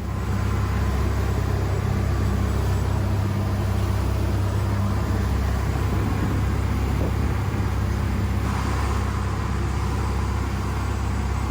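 An engine running steadily with a low, even hum, starting abruptly.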